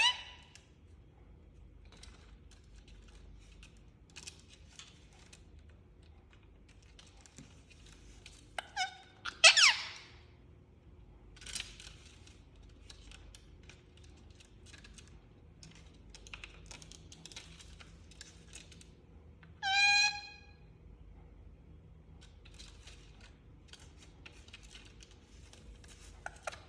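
Indian ringneck parakeet giving a few loud, high screeches: a pair about nine seconds in, a short one soon after, and a longer one about twenty seconds in, with faint soft clicks between the calls.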